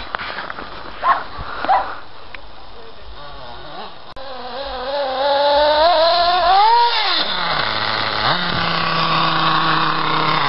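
Small nitro glow engine of a Kyosho MP7.5 Sport 1/8-scale RC buggy: after two short louder blips in the first two seconds, it revs up to a high whine about six to seven seconds in, drops back, and then runs at a steady speed.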